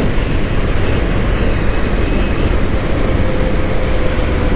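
KTM Duke 250 motorcycle being ridden, wind rushing over the microphone with the engine running, and a thin steady high whine on top.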